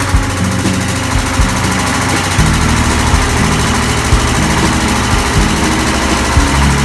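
Diesel engine of a 15 kVA self-start generator set running with a steady, pulsing low beat. It grows heavier and fuller about two and a half seconds in.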